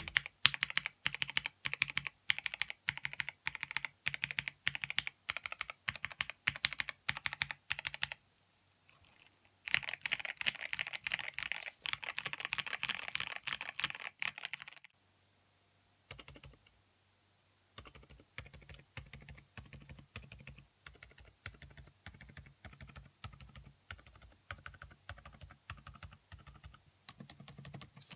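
Typing on a MISTEL MD750 Delight 75% mechanical keyboard: first steady, evenly spaced keystrokes, then after a short pause a fast, dense run of typing. After another pause come steadier, quieter keystrokes.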